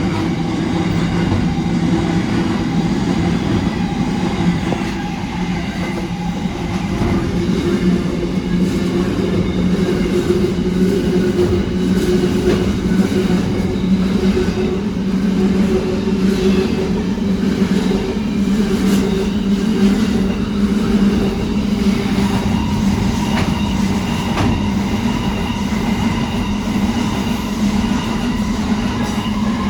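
Freight train running past: a steady diesel locomotive drone with held low tones, and sharp clicks from wheels crossing rail joints.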